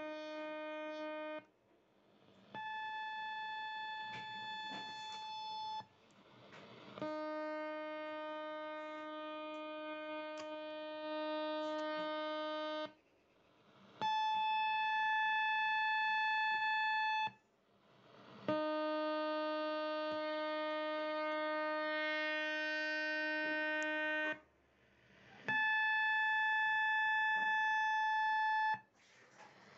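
Military radar signal on the 11-metre CB band, heard through a Kenwood TS-850S HF transceiver's speaker as a steady electronic buzzing tone. It comes in segments of a few seconds with short gaps between, alternating between a lower and a higher pitch.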